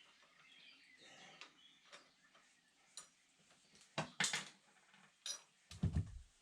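Hand tools and metal parts clinking: a few sharp metallic clicks about four seconds in, then a duller thump near the end.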